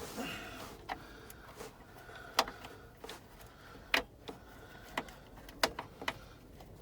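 Scattered sharp clicks and knocks of hand tools and plastic dash trim being handled while the upper glove box cover is taken off a pickup's dashboard, with a short squeak at the start.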